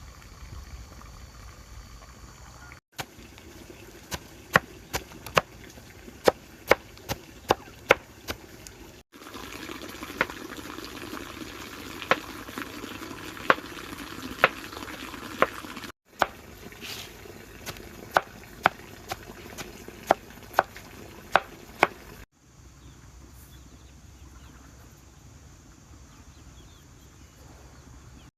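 Sharp knocks repeated about twice a second, in several stretches broken off by abrupt cuts.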